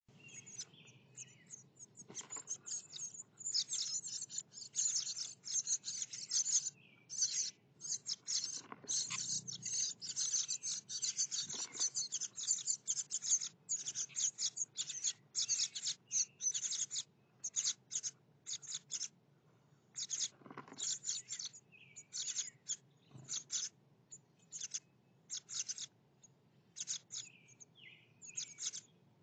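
House wren nestlings begging at close range from the nest inside the camera housing: rapid, high-pitched chirps in dense bursts that thin out into scattered calls about halfway through.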